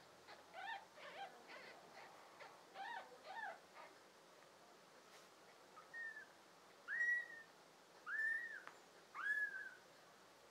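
Newborn kittens mewing: a run of short, soft squeaky mews in the first few seconds, then four louder, longer high-pitched cries, each rising and falling, in the second half.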